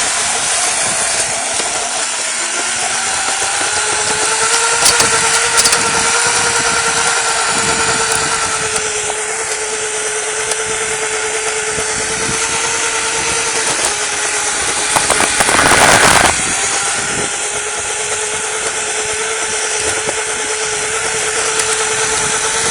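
Electric scooter motor whining steadily while riding, its pitch wavering slightly with speed, over rushing road and wind noise. A louder rush of noise comes about fifteen seconds in.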